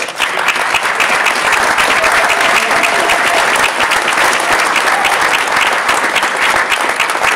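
Audience applauding: a room full of clapping hands that breaks out all at once and keeps up steadily.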